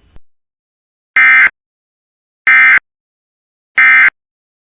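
Emergency Alert System end-of-message signal: three short, loud digital data squawks about a second apart, the SAME "NNNN" code that closes a broadcast alert test.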